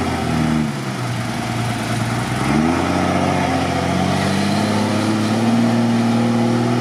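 IFA W50 truck's engine running under load while wading through mud and water. The revs drop about half a second in, climb again at about two and a half seconds, then hold steady.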